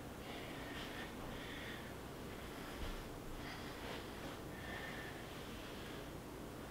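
A man breathing audibly in and out, several breaths in a row, as he exerts himself through a floor stretch exercise.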